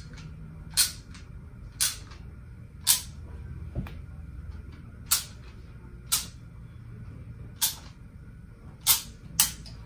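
Manual caulking gun squeezed again and again as it pumps intumescent sealant, a sharp click of the trigger ratchet about once a second, eight or so in all, two in quick succession near the end.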